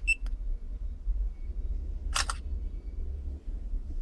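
A smartphone camera-app shutter sound, fired once about two seconds in by pressing the iTag Bluetooth tracker's remote-shutter button. It is preceded by a short click right at the start.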